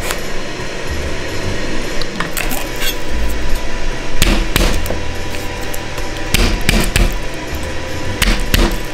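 Kitchen knife chopping eggplant on a cutting board: a string of sharp knocks, several coming in quick pairs, as each piece is cut through to the board.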